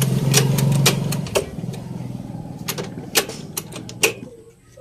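Aluminium motorcycle shift lever worked by hand, its linkage giving sharp clicks at irregular intervals, over a low steady hum that fades out about a second and a half in.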